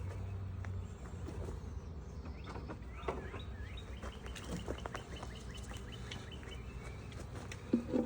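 Birds chirping at intervals over a low steady hum of honeybees, with a few light clicks.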